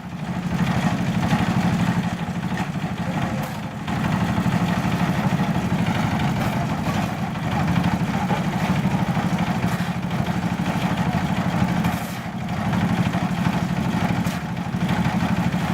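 An engine running steadily at an even idle-like pace, with a fast, even pulse.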